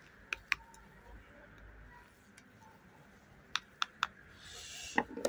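Thin wooden sticks knocking against each other and against the hive's wooden frames as they are gathered up: a few short, sharp clicks, two near the start and a quick run of three past the middle, with a brief rustle near the end.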